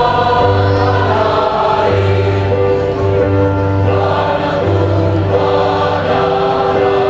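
A large women's choir singing together, holding long sustained notes that change about every second.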